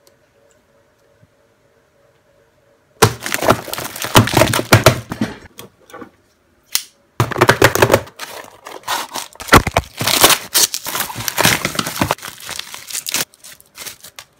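Plastic mail packaging being torn open and crinkled by hand, in loud crackling bursts that start about three seconds in and go on for about ten seconds, with a short pause partway through.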